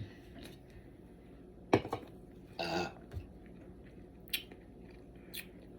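A woman burping from carbonated soda: two short burps a little before the middle. Later come a few faint, sharp clicks.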